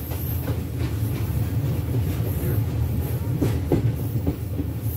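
Passenger train coach running along the track, heard from its open doorway: a steady low rumble of wheels on rails, with a few clacks over rail joints a little past the middle.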